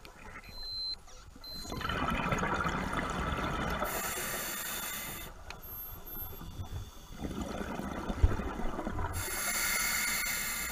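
Scuba regulator breathing heard underwater: two rounds of bubbling exhalation, each followed by a hissing inhalation, with one sharp knock about eight seconds in.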